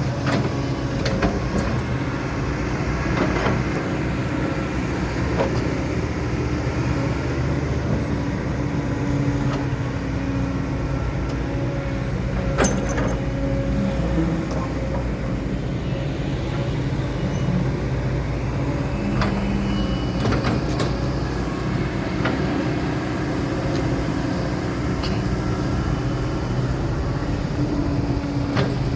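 Kobelco SK200 hydraulic excavator's diesel engine running at a steady speed, with a few sharp clicks or knocks over the top.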